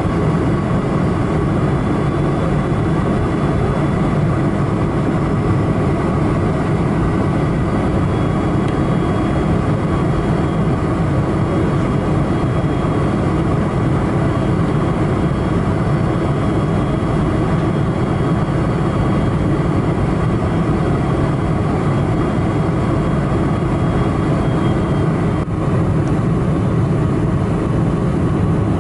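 Steady cabin roar of a Boeing 747-400 in flight, heard from a window seat: the drone of its General Electric CF6-80C2 turbofans mixed with rushing airflow, with faint steady whines above.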